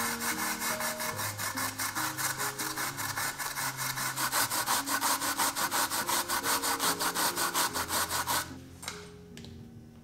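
Fast, even back-and-forth scraping strokes, about six a second, that stop suddenly about eight and a half seconds in, over soft guitar background music.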